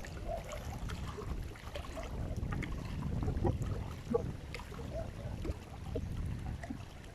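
Outdoor ambience by a pond: a steady low rumble of wind on the microphone, with scattered faint short chirps and small ticks.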